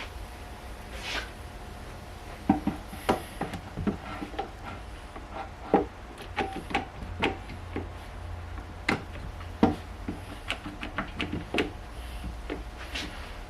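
Irregular sharp clicks and knocks, one to a few a second, starting a couple of seconds in, over a steady low hum.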